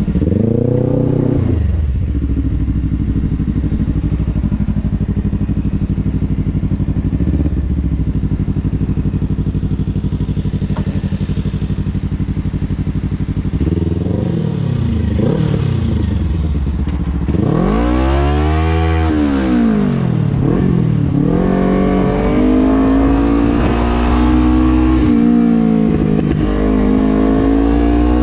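Kawasaki Ninja 300's parallel-twin engine running at a steady low speed, then revving up and dropping back several times, with one long climb and fall in the middle and the pitch rising again near the end.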